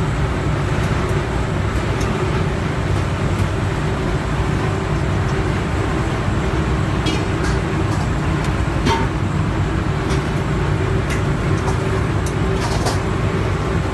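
Steady machinery hum: a low drone with a higher steady tone, and a few light metallic clicks in the second half.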